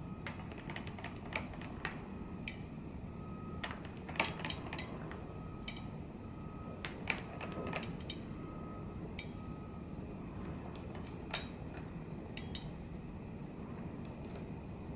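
Circular sock machine clicking as its cylinder is cranked a little at a time and yarn is laid into the needle hooks: light, irregular metallic clicks and ticks from the latch needles.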